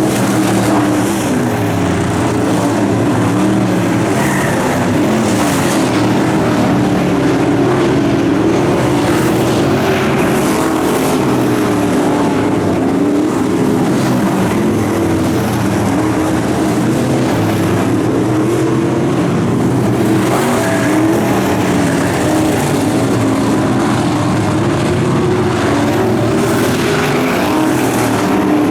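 Dirt track race car engine running hard through hot laps, loud and continuous, its pitch repeatedly rising and falling.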